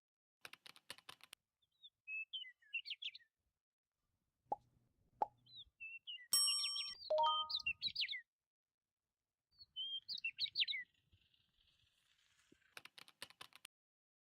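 Short bursts of bird chirping, three times, with two plops and a ringing ding among them, each burst set apart by dead silence. A rapid clicking rattle comes shortly after the start and again near the end.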